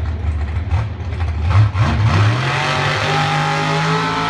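Chevrolet Camaro door-slammer drag car's engine rumbling at idle, then revved up about two seconds in and held at high revs with the rear tyres spinning in a burnout.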